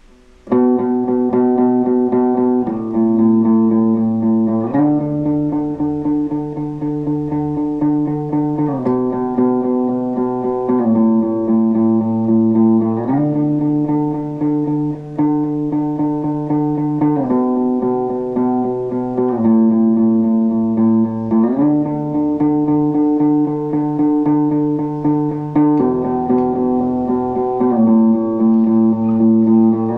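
Electric guitar playing the intro of a song, a repeating chord progression picked continuously, the chords changing every two to four seconds. It starts about half a second in.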